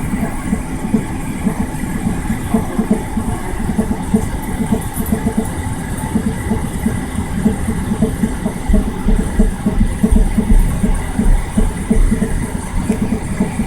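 A motor running steadily with a fast, regular pulsing, and a deeper rumble that grows stronger about two-thirds of the way in.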